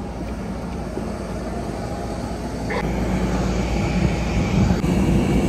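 Turboprop airliner's engine running on the apron, a steady low hum that grows gradually louder over the few seconds.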